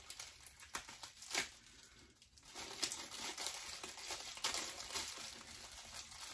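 Packaging crinkling and rustling unevenly as it is handled and opened by hand.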